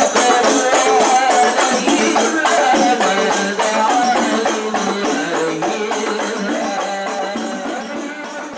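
Rebana ensemble of hand-struck frame drums playing a fast, steady beat with a melody over it, gradually fading away over the last few seconds.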